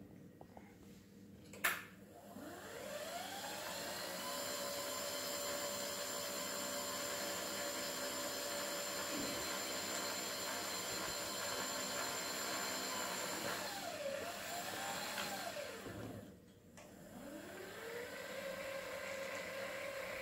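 Electric wheelchair's DC drive motor turning its opened gear reducer, packed with grease: a sharp click, then a whine that rises to a steady pitch. About fourteen seconds in the pitch wavers, winds down and stops, then the whine starts and rises again near the end.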